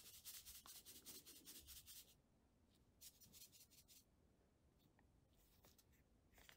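Faint crinkling of foil-lined powder-mix sachets being handled: a rustling burst of about two seconds, another of about a second shortly after, and a shorter crinkle near the end as a thin plastic bag is handled.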